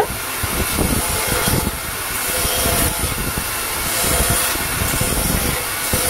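Belt grinder running steadily while the pinned wooden handle of a knife is sanded against its abrasive belt, giving a loud, even hiss with a rough grinding undertone.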